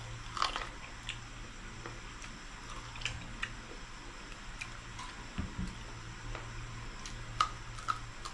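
Close-up chewing and biting of crispy fried pork knuckle (crispy pata), with scattered sharp crunches as the crackling skin breaks. A low steady hum runs underneath.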